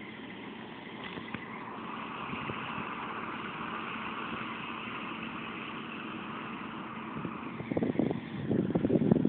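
Niva SK-5 combine harvester's diesel engine and threshing machinery running steadily, a little louder after the first couple of seconds. Loud irregular low thumps come in during the last second and a half.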